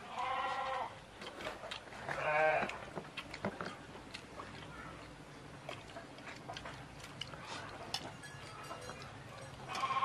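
A farm animal bleating, with a wavering call about two seconds in, among faint clicks.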